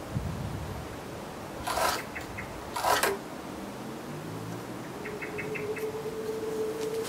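Two short scrapes of wood on wood, about a second apart, as a hand works the tapered wooden wedge in a tusk tenon joint of the lathe's frame.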